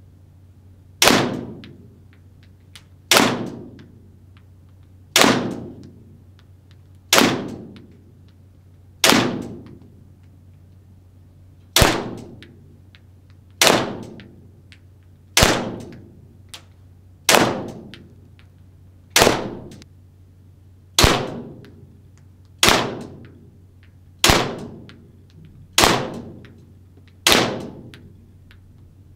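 ARMY TTI Combat Master gas blowback airsoft pistol firing single shots at a slow, steady pace, about fifteen shots roughly two seconds apart. Each sharp crack is followed by a short echo that fades.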